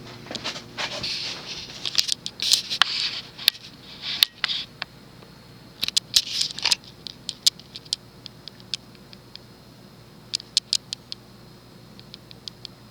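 Emerson Northwind 29-inch ceiling fan's 153x10mm spinner motor running steadily on medium speed with a faint medium-pitched running moan. Irregular high chirps and clicks from another source sound over it, thickest in the first few seconds and again near the end.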